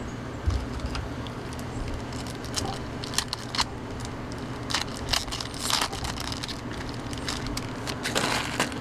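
Baseball trading cards being handled and flipped through by hand: scattered soft clicks, slides and crinkly rustles over a steady low hum.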